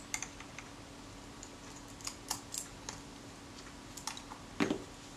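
Light scattered clicks and ticks of fingers and small tools on the metal body of a Kodak Retina IIIS camera as its temporary base plate is unscrewed and lifted off, with a soft knock about four and a half seconds in. A faint steady hum runs underneath.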